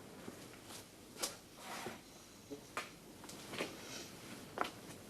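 A few faint, short knocks and clicks, spaced roughly a second apart, over low room noise.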